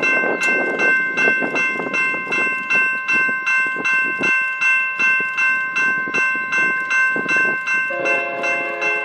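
Railroad grade-crossing bell ringing steadily at about two strokes a second. About eight seconds in, the approaching BNSF ES44DC locomotive's multi-note horn begins to sound under the bell.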